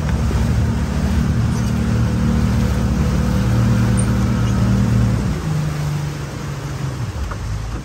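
Motorboat engine running steadily under way, with water and wind rushing past. About five seconds in the engine is throttled back: its note drops and quietens as the boat slows.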